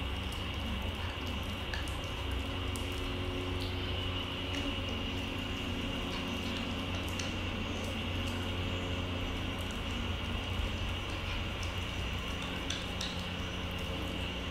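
Pomeranian puppy chewing a dried rabbit-ear treat: scattered small crunches and clicks of teeth on the tough ear, over a steady low hum.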